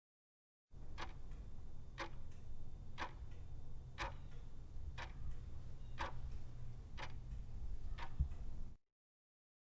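Clock ticking once a second, eight ticks over a low rumble, starting and cutting off abruptly: a countdown-timer tick sound effect.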